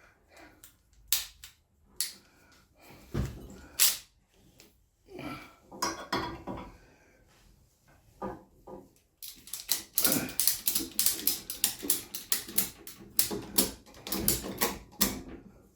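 Ratchet strap being cranked tight: a few separate clanks, then about six seconds near the end of quick metal clicks, about five a second, with short pauses.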